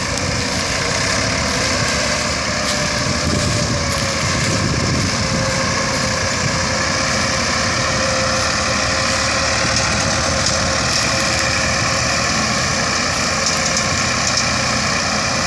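Ford 3610 and 4610 tractors' diesel engines running steadily under heavy load, pulling a sugarcane-laden trailer out of rain-softened mud. The engine pitch rises slightly about two seconds in.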